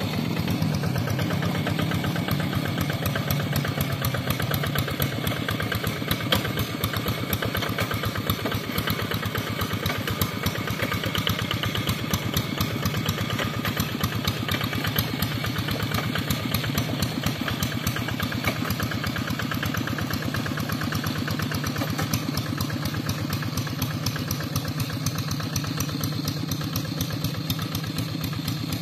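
Two-wheel hand tractor's engine running steadily, a rapid even firing beat with no pauses.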